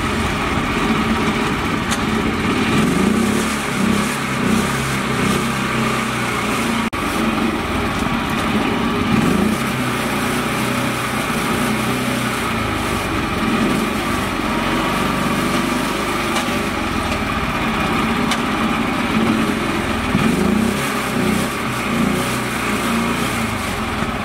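Small engine of a homemade mini tractor running steadily, revving up and dropping back several times as the tractor, stuck in mud, strains to drive out.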